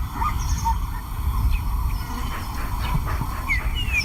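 Male lion making low growling sounds at its fresh zebra kill, with small birds chirping near the end.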